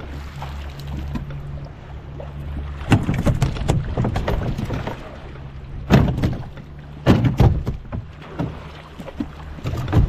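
A small boat's engine idles with a steady low hum; about three seconds in, water starts slapping and splashing against the hull in a run of loud, uneven bursts.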